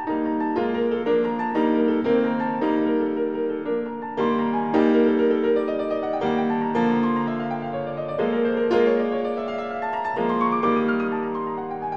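Background piano music: notes struck in a steady stream over a held low note.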